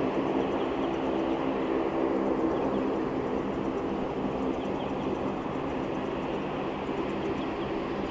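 Distant Boeing 787-10 twin jet engines running with a steady hum.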